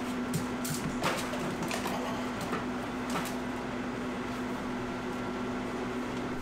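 Containers and bags of frozen food being shifted around in an open freezer: a few light clunks and rustles over the first few seconds, over a steady appliance hum.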